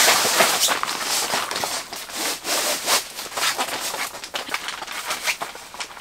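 A foil-faced camping mat and other floor mats being flipped and spread over a tent floor, making a run of rustling, crinkling and rubbing strokes. It is loudest at the very start as the mat comes down.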